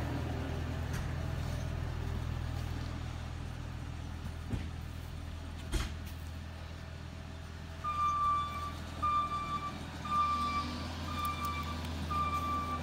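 A Bobcat Toolcat utility machine's engine running steadily, with a couple of knocks near the middle. About two-thirds of the way in its backup alarm starts beeping, a steady high beep repeating a little under twice a second, as the machine reverses.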